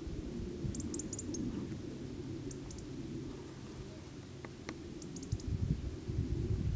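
Wind rumbling on the microphone, getting gustier near the end, with a few faint, short, high bird chirps in small groups.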